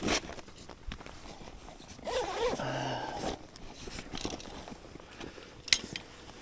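Rustling and knocking of a wooden ice-fishing tip-up being pulled out of a padded carrying bag, with crunching steps in snow. About two seconds in there is a brief voice-like sound with a wavering pitch, and a sharp click near the end.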